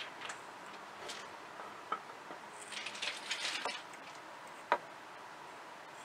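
Small metal clicks and taps as a ring band held in steel tweezers is set down and positioned on a metal sheet: a quick cluster of light taps about three seconds in and one sharper click near five seconds.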